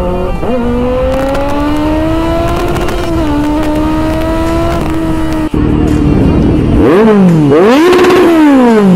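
Kawasaki Z900's inline-four engine, fitted with an aftermarket exhaust can, pulling with a slow rise in pitch and two brief dips at gear changes. About five and a half seconds in the sound cuts to the engine revved hard several times in quick up-and-down blips.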